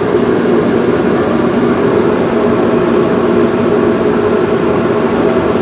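A steady mechanical hum that does not change, with no knocks or rhythm in it.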